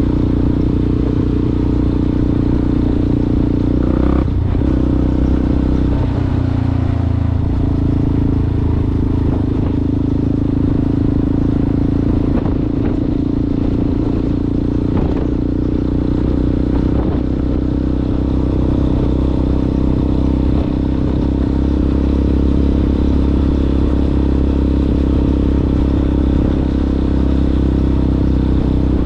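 Yamaha Ténéré motorcycle with an aftermarket Coyote exhaust riding off-road, its engine running at fairly steady revs. A few short knocks and rattles from the rough track, around four seconds in and again midway.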